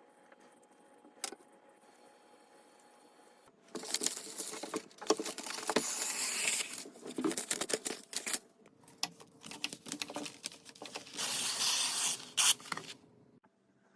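Irregular rustling and scraping with many scattered clicks, starting about four seconds in and stopping shortly before the end.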